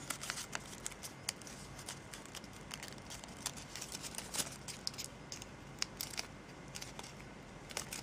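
Origami paper rustling and crinkling faintly as it is folded and creased by hand, with scattered short crisp crackles.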